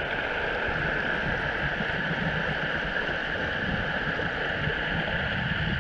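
Shallow river running fast over a stony bed, a steady rushing of water.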